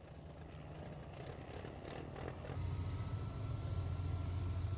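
Battery-electric remote-controlled helicopter tug driving unloaded across a hangar floor: a low motor hum with a faint steady whine that swells up about halfway through, with a few light rattles before it.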